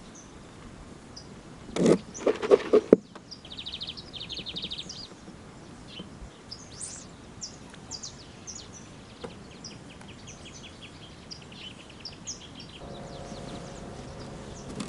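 Birds chirping and trilling at the water's edge: scattered high chirps, a buzzy trill about four seconds in and a run of fast ticking notes later. A brief loud burst of noise about two seconds in, and a low steady hum that comes in near the end.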